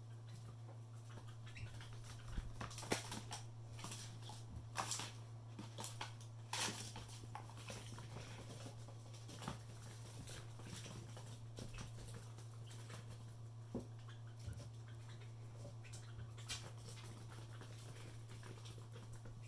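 Two young kusimanses (small mongooses) scampering and scuffling on a wooden floor: the patter and scrabble of small claws and feet with scattered taps, busiest from about two to seven seconds in and sparser after. A steady low hum runs underneath.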